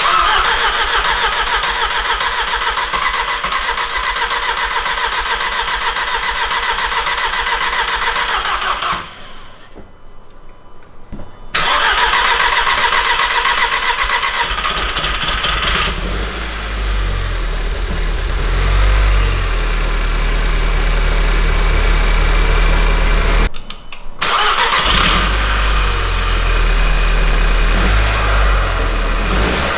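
Rebuilt 2.0T FSI turbo four-cylinder engine of a MK6 VW Golf R being started for the first time. The starter cranks it for about nine seconds without it catching, stops briefly, cranks again, and the engine fires about sixteen seconds in and keeps running.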